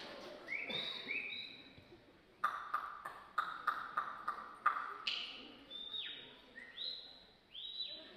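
Mouth-made sound effects by a mime through a headset microphone: two short rising squeaky whistles near the start, then a quick run of sharp clicks, then squeaky whistles that slide down and up again near the end.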